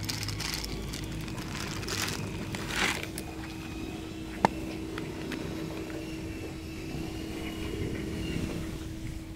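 A steady mechanical hum with one even low tone, and a single sharp click about four and a half seconds in.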